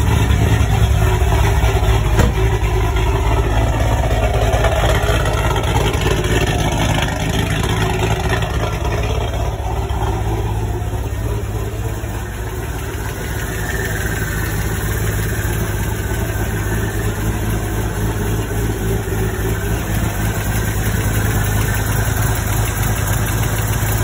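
A 2009 Pontiac G8 GT's 6.0-litre V8, fitted with an aftermarket TSP camshaft, idling steadily.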